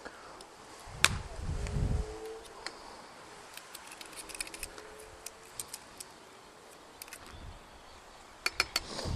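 Metal garlic press and knife being handled over a steel bowl. There is a sharp click about a second in with a low rumble after it, then a run of light metallic ticks and scrapes as the crushed garlic is scraped off the press, and a cluster of clicks near the end.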